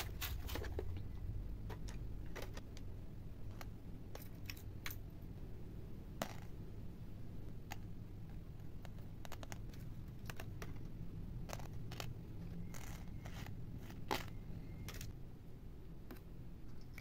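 Small steel treble hooks being handled on a tabletop, giving scattered light metallic clicks and ticks, a few seconds apart, over a faint low hum.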